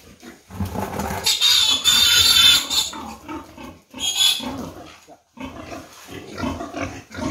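Piglet squealing loudly as it is grabbed and held for deworming. One long high squeal comes about a second in and a shorter one about four seconds in, with lower pig sounds from the litter in between.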